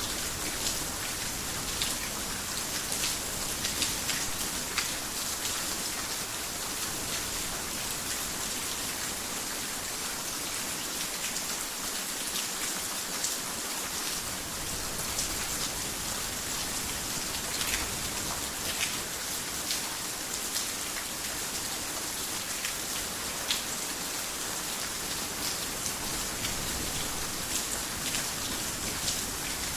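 Heavy rain falling steadily on a roof, a dense even hiss with scattered sharper drop ticks.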